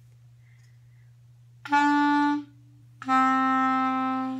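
Clarinet played two notes, written E then D: a short note about 1.7 seconds in, then a slightly lower note held for over a second that fades away at the end.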